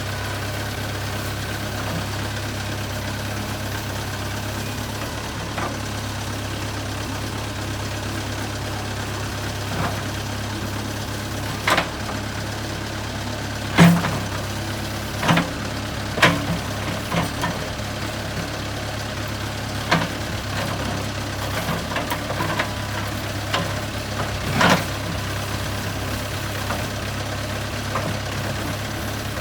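JCB 3CX backhoe loader's diesel engine running at a steady speed, with a string of sharp knocks and clanks through the middle and latter part.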